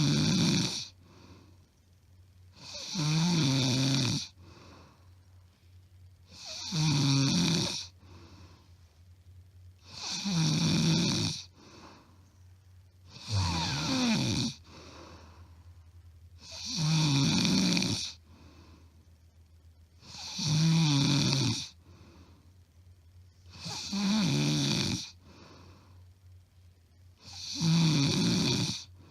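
A woman snoring loudly, recorded up close: about eight snores, one every three and a half seconds, each lasting about a second with a quieter gap between. The uploader says the snoring is not from sleep apnoea, only very loud.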